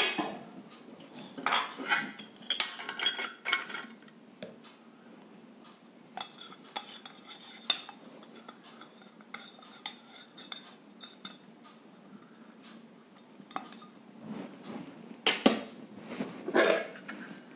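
Stainless-steel sev press parts clinking and knocking as the press is taken apart, its fine mesh plate set in and oiled: a cluster of clinks in the first few seconds, scattered light taps through the middle, and two louder metal knocks near the end as the barrel is set down on a steel plate.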